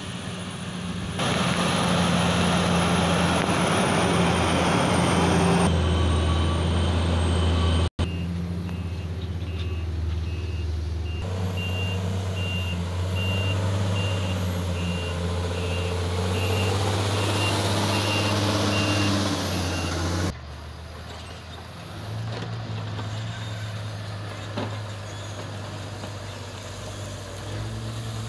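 Heavy diesel engines of an HBM motor grader and a dump truck running with a steady low drone. Through the middle stretch a reversing alarm beeps at an even pace. Near the end the engine sound drops to a quieter, steady running.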